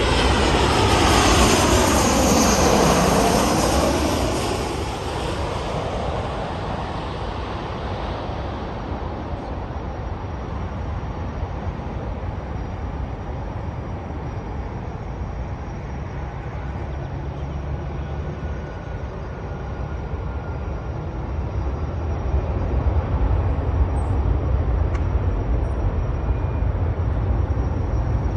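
Boeing 737-700 jet airliner with CFM56 engines passing close by: its engine whine sweeps down in pitch over the first few seconds. It then fades into a steady low jet rumble that swells again in the last several seconds.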